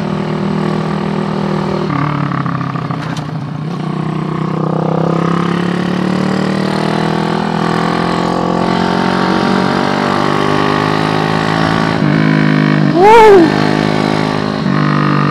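SND ZS190 single-cylinder four-stroke motorcycle engine, a Daytona Anima 190 replica, running under way: its pitch climbs steadily through the middle as the bike accelerates, dropping back at gear changes. A short loud rising-and-falling tone cuts in near the end.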